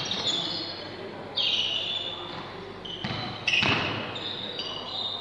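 Basketball shoes squeaking in short sharp chirps on a hardwood gym floor, several times, with a ball bouncing and players' voices echoing in the large hall.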